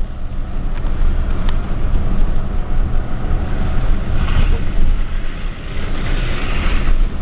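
Pickup truck on the move: steady low engine and road rumble, with two stretches of louder hiss about four and six seconds in.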